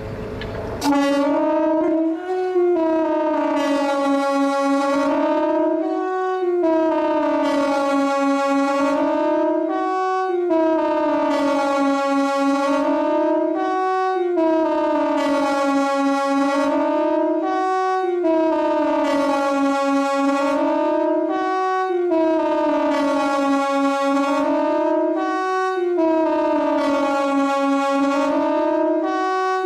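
KTG-10 warning siren sounding a continuous wail that rises and falls in pitch about once every two seconds, coming in at full level about a second in.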